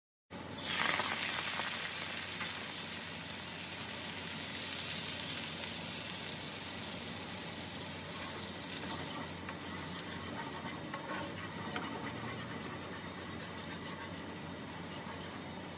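Onions and garlic sizzling in hot oil in a frying pan, stirred with a spatula. The sizzle starts suddenly and is loudest about a second in. It then settles to a steady, softer hiss as tomato sauce and stock cook in the pan.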